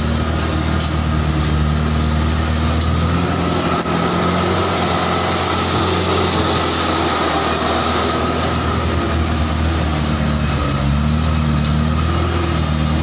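Engine of an off-road vehicle driving on a rough, rocky dirt road, heard from inside the cab, with a steady rushing noise of the drive over it. The engine note shifts a few times, dropping about three seconds in and rising again later.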